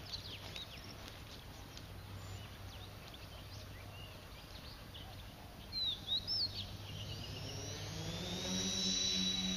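Small birds chirping and whistling in short calls; about eight seconds in, a tricopter's three electric motors and propellers spin up with a rising whine that grows louder toward the end, the throttle coming up for takeoff.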